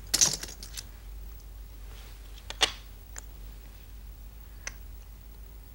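Go stones being set onto a large magnetic demonstration board: a sharp click just after the start and another about two and a half seconds in, with a few fainter taps later, over a low steady hum.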